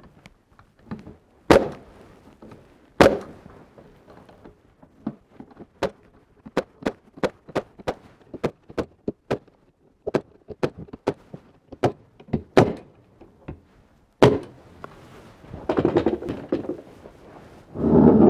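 Sharp knocks and clacks of pine beehive super boards being handled and fastened on a workbench, a few much louder than the rest, with a scraping rustle near the end as the box is shifted.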